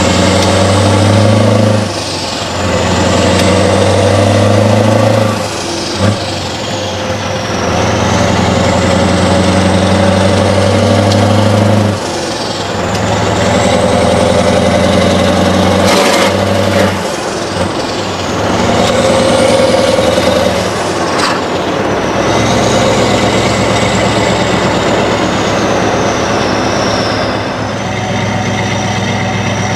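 Scania R500's straight-piped V8 heard from the cab under load, its note dropping away briefly several times between pulls, as at gear changes, with a high whistle rising and falling over each pull. Near the end it settles into a steadier, quieter run.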